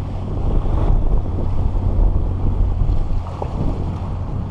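Wind buffeting the microphone in a steady low rumble, over choppy shallow water lapping at the shore.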